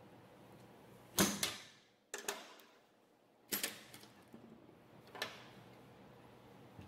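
A few sharp clicks and snaps, about five in all and spread unevenly, from a pair of hand cable cutters being worked and handled on a rubber-jacketed welding lead.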